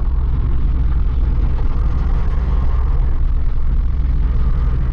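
Truck cab interior while cruising on a highway: the engine's steady low drone mixed with tyre and road noise.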